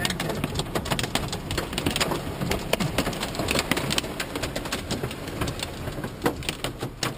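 Hail and heavy rain pelting a minivan's roof and windshield, heard from inside the cabin: a dense, irregular clatter of many sharp hits.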